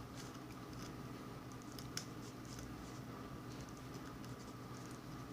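Faint, scattered metallic clicks and ticks of a Sparrows SSDEV medium hook pick working the pins of a Schley pin-tumbler lock under tension, with a sharper click about two seconds in; the picker is probing pins for counter-rotation after losing a false set. A low steady hum runs underneath.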